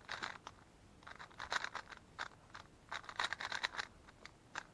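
Moyu Weilong GTS3 M magnetic 3x3 speedcube being turned fast: quick runs of plastic clicks and clacks in several bursts, with short pauses between them.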